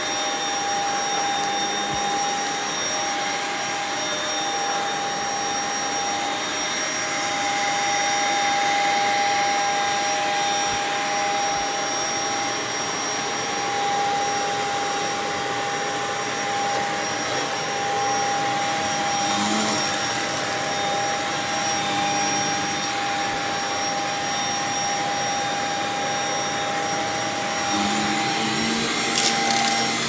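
Stick vacuum cleaner running steadily over a rug, a steady high whine over the rush of the suction. A couple of sharp ticks near the end.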